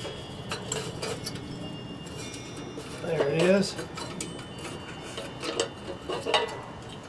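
Light metal clinks and taps from handling a metal kerosene lantern as a wire is fed through it, with wind chimes ringing faintly in the first couple of seconds. A short wavering pitched sound about three seconds in is the loudest moment.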